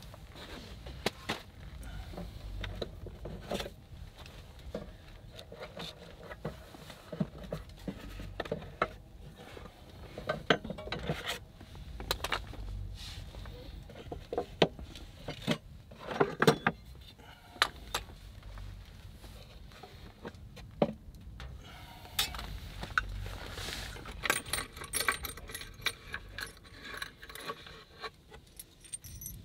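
Objects being rummaged and handled in a wooden crate: scattered knocks, scrapes and clatter of wood and small hard items, with a busier spell of small metallic jingling and clicking near the end.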